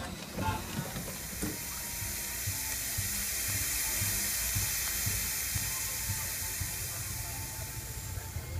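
Steam hissing steadily from a scale-model steam traction engine, building up a second or so in, strongest in the middle and easing off near the end, with faint low thuds underneath.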